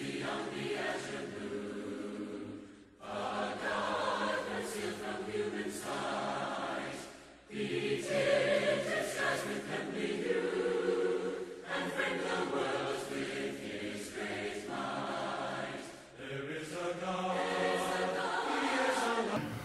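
A choir singing a hymn, in phrases broken by short pauses.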